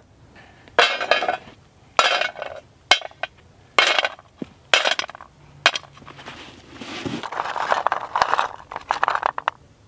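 Wild pecans in their shells rattling and clinking against a small metal pot as a hand stirs through them, a dense run of clicks near the end. Before that come a few separate knocks and rustles.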